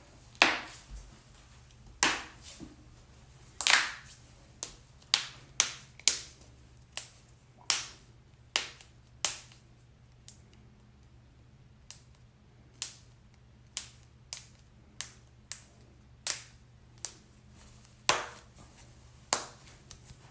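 A run of sharp joint cracks and pops, about two dozen single cracks at irregular intervals, the loudest in the first few seconds.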